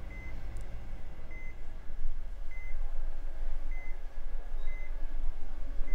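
Hospital patient monitor beeping: a short high beep repeating evenly a little over a second apart, over a steady low hum.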